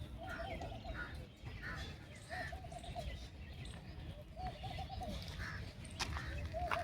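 Birds calling: a short warbling call repeats about every two seconds, with fainter higher chirps between. Two sharp clicks sound near the end.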